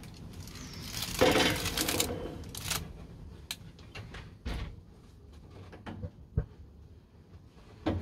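A metal loaf tin holding a baked loaf being set down on a stovetop's metal pan-support grate: a scraping clatter about a second in, then several separate knocks and clicks.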